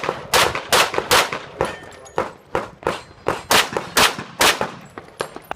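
Handgun shots in rapid, irregular succession, about a dozen of them, some loud and close and others fainter, as from several pistols firing at once.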